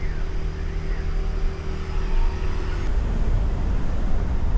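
Car on the move: a steady low engine and road rumble, with a faint hum that fades out about three seconds in.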